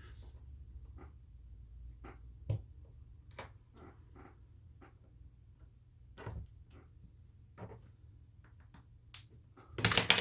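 Sparse small clicks and taps of tools and phone parts being handled during a smartphone screen repair, over a low steady hum, with a louder brief clatter near the end.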